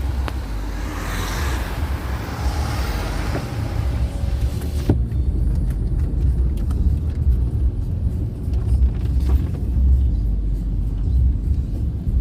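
Low, steady rumble like a moving vehicle, with a hiss over it for the first five seconds that cuts off suddenly.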